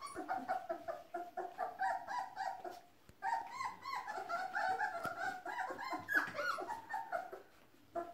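Three-week-old puppies whining in quick, repeated high-pitched squeaks, with a short pause about three seconds in and one more squeak near the end.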